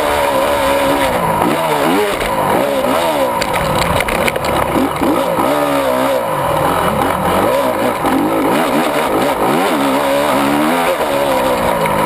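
Honda 250 four-stroke single-cylinder motocross engine at race pace, heard from the bike itself, its pitch climbing and dropping back over and over as the rider works the throttle and shifts through the gears.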